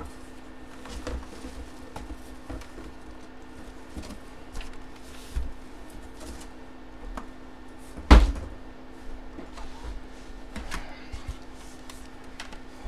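Handling noises from unpacking and turning a full-size football helmet: scattered light knocks and rustles, with one louder thump about eight seconds in.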